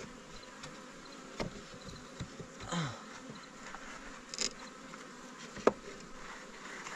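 Honeybees buzzing steadily around an opened hive, with a few sharp clicks and knocks; the loudest comes about two-thirds of the way through.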